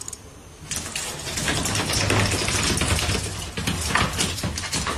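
Rapid, irregular clattering and scrabbling on a hard tile floor, starting just under a second in.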